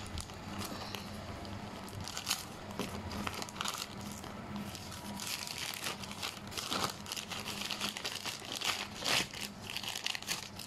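A plastic courier mailer bag being torn open by hand, with irregular crinkling and short ripping sounds as the plastic is pulled apart.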